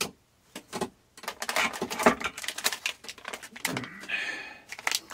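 Hands rummaging on a workbench: a quick, irregular run of light clicks and taps, with a short rustle about four seconds in as a DC-to-DC converter in a clear plastic bag is picked up.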